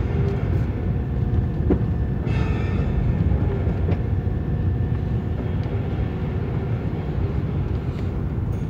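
Car cabin noise while driving slowly on a dirt and gravel track: a steady low rumble of tyres and engine, with a few faint clicks and knocks.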